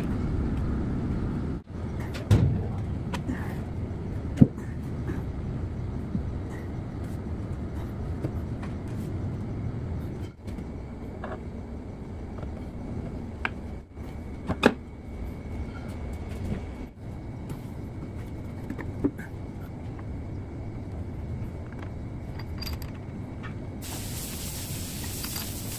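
Steady low rumble of workshop background with occasional sharp metal clinks and knocks as a piston, held in a ring-compressor sleeve, is handled and pushed into a cylinder of a Caterpillar 3406C engine block. A hiss comes in near the end.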